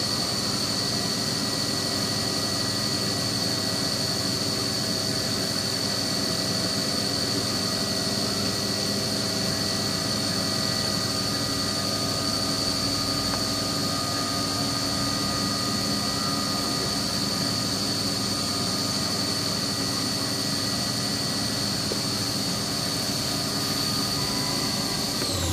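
CNC milling machine spindle running at speed with a steady high-pitched whine and lower hum, winding down at the very end as the spindle is switched off.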